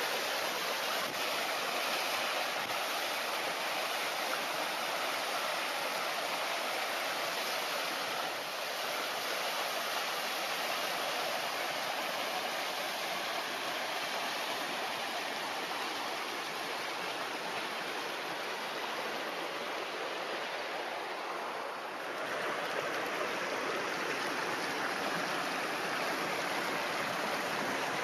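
Waterfall running: a steady rush of falling water, dipping briefly in level about three-quarters of the way through.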